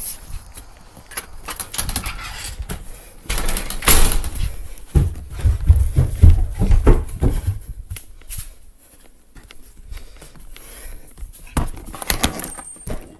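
Footsteps and handling noise from a handheld camera being carried: rubbing and scattered knocks and clicks, with a heavy low rumble through the middle few seconds and another cluster of clicks near the end.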